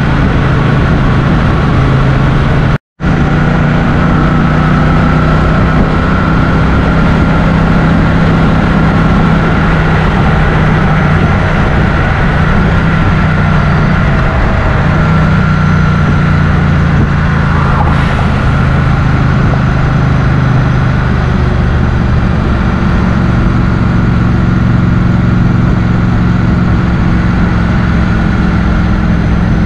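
Motorcycle engine running at a steady pace while riding, over a constant rushing noise. The sound drops out completely for a split second about three seconds in.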